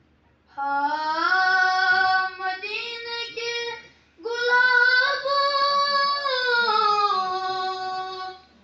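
A boy singing a naat unaccompanied, in two long, melismatic phrases with gliding, held notes and a short breath between them a little after four seconds.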